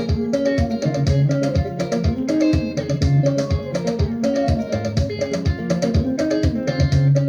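Upbeat gospel praise music: plucked guitar lines over bass and a steady drum beat.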